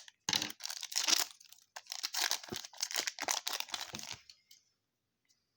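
Foil wrapper of a football trading-card pack being torn open and crinkled, in a run of rustling bursts lasting about four seconds that stops near the end.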